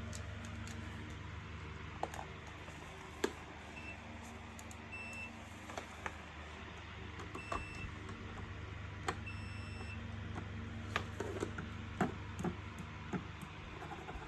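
Four short, high electronic beeps, with sharp clicks of handling scattered around them, mostly clustered near the end, over a steady low hum.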